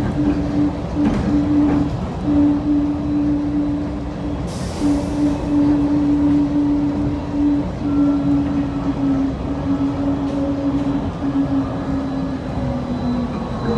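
Automated people-mover train running, heard from inside the car: steady rumble with a motor hum that sinks slightly in pitch near the end, and a short hiss about four and a half seconds in.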